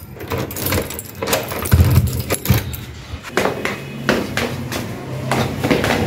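Keys jangling and clicking in a door lock as it is locked. From about halfway through, steady footsteps going down a staircase.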